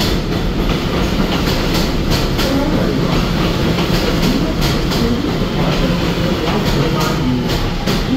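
NYC subway R211A train rolling past a station platform: a steady low rumble with a faint hum, and wheels clicking over rail joints in an uneven run of clicks.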